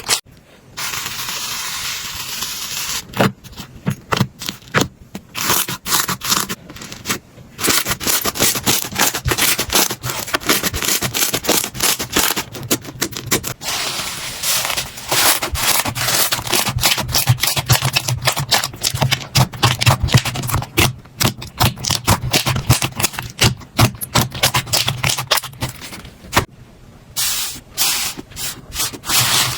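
Slime being squeezed, stretched and poked by hand: a dense run of small crackles, pops and squishes with brief pauses, and a steady hiss for a couple of seconds near the start.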